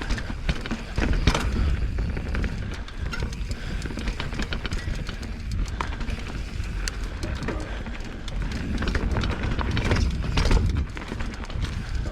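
Mountain bike riding over a rough trail: tyre noise with frequent clicks and rattles from the bike over bumps, under a steady low rumble.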